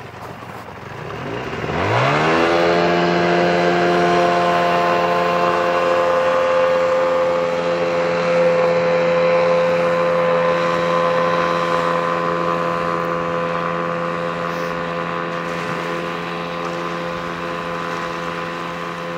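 Mariner outboard jet on an inflatable boat accelerating hard from a standstill with its stock aluminum impeller. The engine pitch climbs steeply over about two seconds, then holds a steady high pitch at full throttle, slowly growing fainter as the boat runs away.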